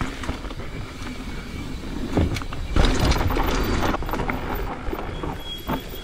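Mountain bike descending a dirt and rock trail: tyres rolling and the bike rattling, with scattered sharp clicks. It gets loudest for a second or two around the middle.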